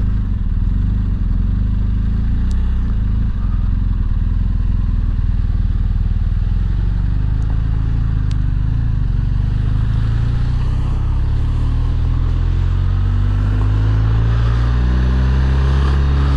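BMW R1250 GS Adventure's boxer-twin engine running at low speed as the motorcycle rides through standing floodwater, with the hiss of wet tyres and spray underneath. Over the last few seconds the engine climbs steadily in pitch as the bike accelerates.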